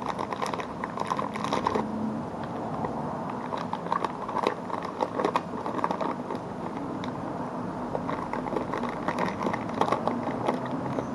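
A person chewing Djungelvrål salty liquorice sweets, with small crackling rustles from the plastic sweet bag handled in his hands.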